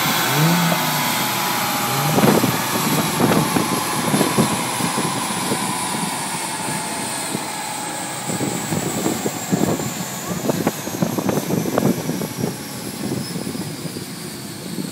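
Aston Martin DB7 GT spinning down on a chassis dyno after a power run: the rollers, driven wheels and drivetrain whine in a pitch that falls slowly and steadily as they coast to a stop. Irregular low thumps run underneath, and the whole sound slowly fades.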